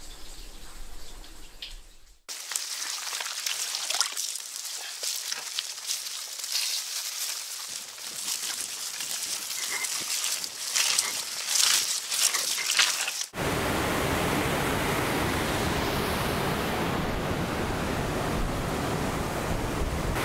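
A bicycle rolling along a dirt path covered in dry fallen leaves, with crackling and rattling of leaves and small clicks close by the rear wheel. About 13 seconds in this gives way to a steady rush of river water foaming over and below a small dam.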